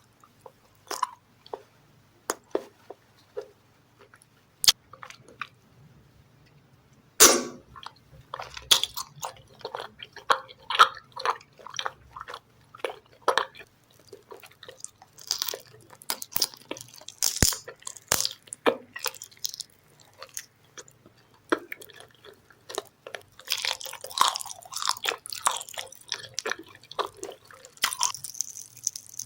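Close-miked eating sounds: a few sharp bites and mouth clicks, then a loud crunching bite about seven seconds in, followed by steady, busy chewing of crunchy food. A faint low hum runs underneath.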